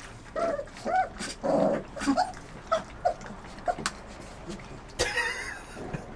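German wirehaired pointer puppies, about four weeks old, whimpering and yipping in short, arching cries, several in the first four seconds. A brief noisy burst follows about five seconds in.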